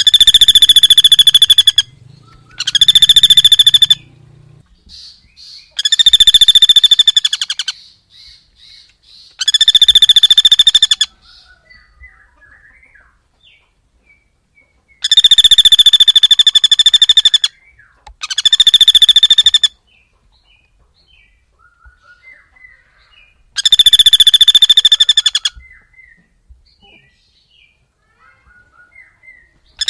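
A rapid, buzzy trilling call in loud bursts of about one and a half to two seconds, seven times at uneven gaps, with faint short chirps between the bursts.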